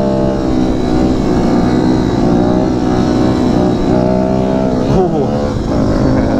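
Kawasaki Z125 Pro's 125 cc single-cylinder engine running at steady riding revs, heard from on the bike with wind rumble on the microphone. About five seconds in, the pitch changes briefly.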